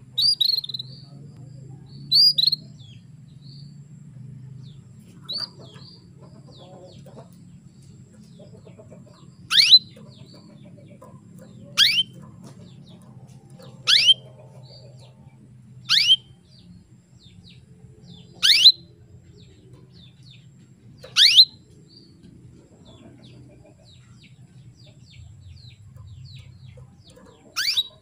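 Female domestic canary calling to males: a few short high chirps at first, then loud, sharply falling calls about every two seconds, with a longer pause before a last one near the end.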